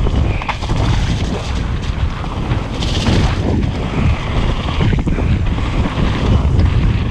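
Wind rushing over the microphone of a mountain bike descending a wet dirt trail at speed, with the tyres rolling over the dirt and occasional knocks and rattles from the bike over bumps.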